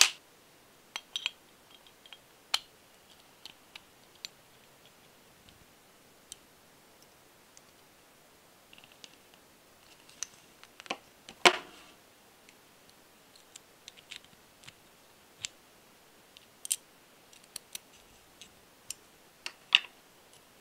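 Scattered sharp clicks and taps of small metal parts being handled and fitted together while assembling an all-metal radial engine model kit, including pliers gripping a small brass fitting on an aluminium cover plate. The loudest clicks come about halfway through and again near the end.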